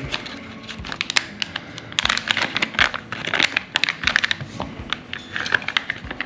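Plastic pouch of a first aid pack being slit with a knife and pulled open by hand: a few faint clicks at first, then dense crinkling and crackling from about two seconds in as the packaging is handled.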